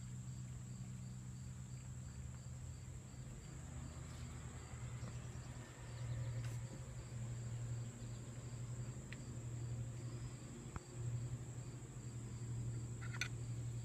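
Crickets chirping in a steady, evenly repeating pattern over a constant high insect drone, with a steady low hum underneath.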